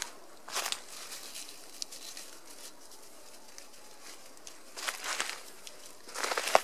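Footsteps crunching through dry fallen leaf litter in a few short bursts: about half a second in, around five seconds, and near the end, the last the loudest.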